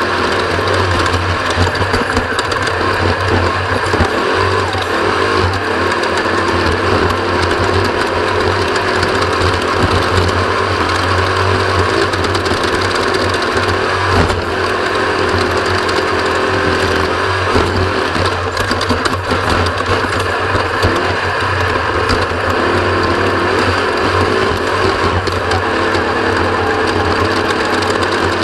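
Off-road race vehicle's engine running hard and steady at speed, a loud, even mechanical drone with no lifts or pauses.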